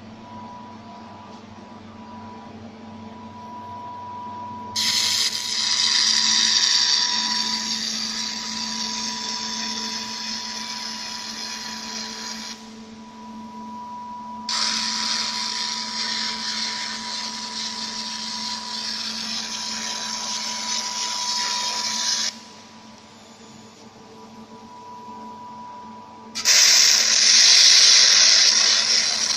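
Robotic fiber laser welding: three passes of loud hissing noise, each several seconds long, that start and stop abruptly, over a steady machine hum and a constant high tone.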